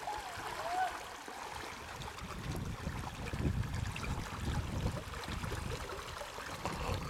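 River water running and splashing around a swimmer wading and swimming through the current, with a low uneven rumble building from about two seconds in.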